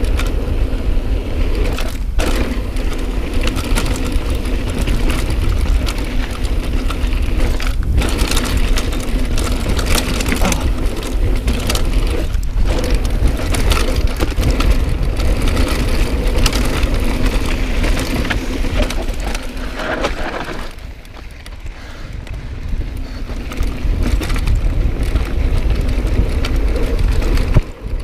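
Mountain bike riding over a dry dirt trail: tyres crunching on loose dirt and gravel, with frequent rattles and knocks from the bike and a low rumble of wind on the camera microphone. It quietens for a couple of seconds about three-quarters of the way through.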